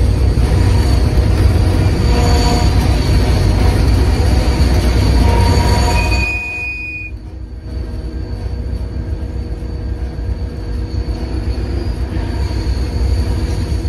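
A train running on rails: a heavy low rumble with high wheel squeals coming and going. About six seconds in, the rumble drops away and the train runs on more quietly.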